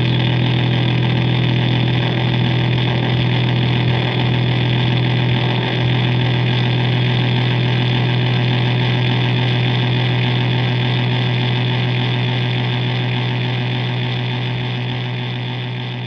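Ibanez GSR200 electric bass run through a Zoom G1Xon multi-effects unit, holding one low note as a heavily distorted drone with harsh noisy overtones. It stays steady, then slowly fades over the last few seconds.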